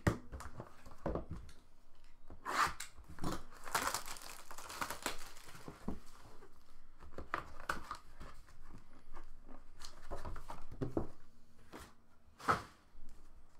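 Plastic shrink-wrap being torn and crinkled off a trading-card hobby box, with the cardboard box and packaging handled in irregular rustles and knocks. A sharper knock comes about a second before the end.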